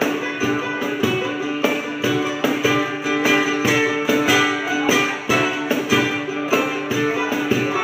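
Instrumental break of a small acoustic band: guitar and five-string banjo picking, with a cajón knocking out a steady beat and no vocals.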